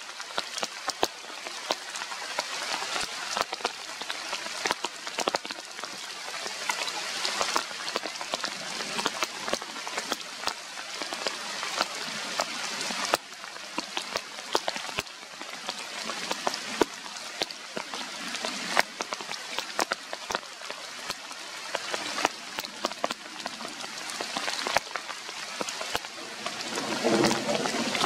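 Steady rain falling on the forest canopy, a hiss filled with many small drop patters on leaves and branches. Near the end, a brief pitched sound rises over the rain.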